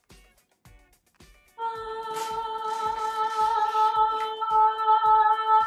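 Background music with a steady beat, then, about a second and a half in, one long held sung note in a woman's voice that carries on unbroken past the end. Light rustling of the cardboard box lid comes through under the note.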